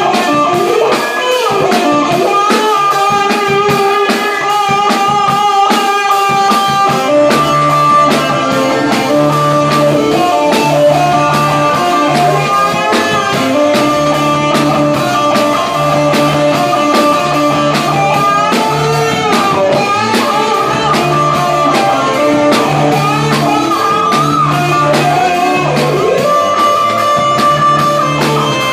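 Live band music: an electric guitar played over a drum kit, with a low bass line joining about seven seconds in.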